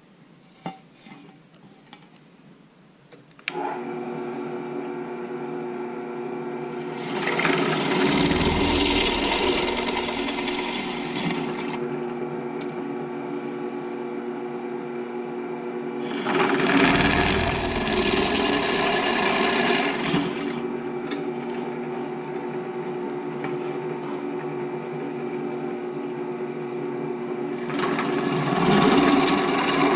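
Benchtop drill press switched on a few seconds in, its motor running with a steady hum. Three times the bit is fed down and cuts through the hydrofoil plate, each cut a louder grinding spell of a few seconds over the hum.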